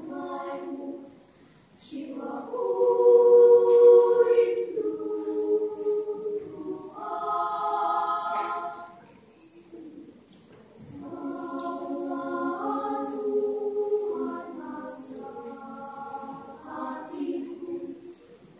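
Primary-school children's choir singing in sustained phrases, with short breaks about a second and a half in and about ten seconds in; the fullest, loudest passage comes about three to four seconds in.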